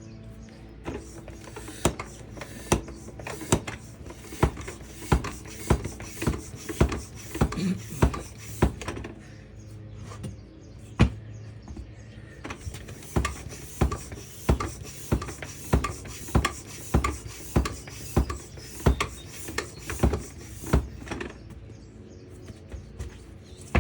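Hand bicycle pump inflating a new inner tube inside a lawn mower tire: a steady run of pump strokes, about two a second, with short pauses about ten seconds in and near the end.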